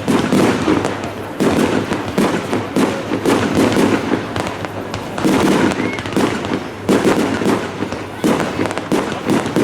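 Fireworks display: a continuous barrage of firework bangs, a sharp one about every second, over constant crackling.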